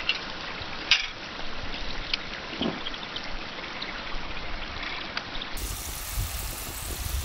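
French fries deep-frying in hot vegetable oil: a steady sizzle with scattered crackles and pops.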